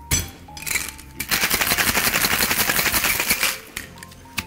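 A sharp knock, then ice rattling hard inside a stainless steel Boston shaker as a cocktail is shaken vigorously for about two seconds. The shaking stops near the end.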